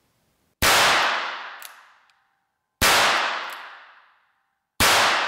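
Three shots from a Ruger Wrangler .22 LR single-action revolver, about two seconds apart. Each is a sharp crack followed by a long reverberating tail off the walls of an indoor range.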